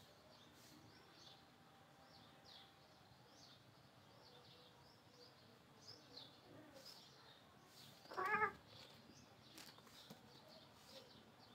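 A cat meows once, briefly, about eight seconds in, the loudest sound here. Small birds chirp faintly and repeatedly in the background.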